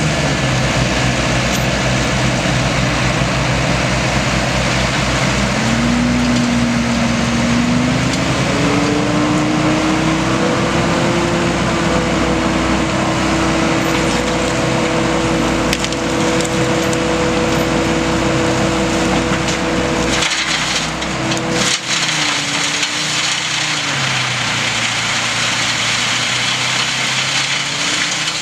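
Bruks wood chipper mounted on a Timberjack 1410D forwarder, chewing wood with a steady splintering and crushing, over the forwarder's diesel engine working under load. The engine pitch climbs about a quarter of the way in and sags about three-quarters through as the load changes.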